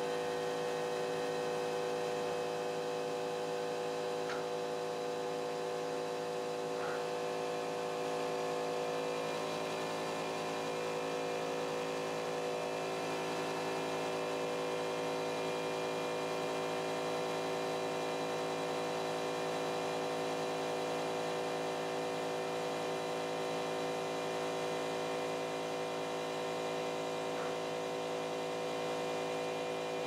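CNC pen-plotting machine running with a steady, even hum of many tones, with a few faint ticks.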